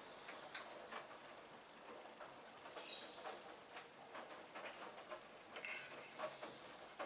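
Hoover washing machine at work early in a cottons-with-prewash cycle: faint irregular clicks and knocks of the drum turning the laundry, with two short high-pitched chirps about three and six seconds in.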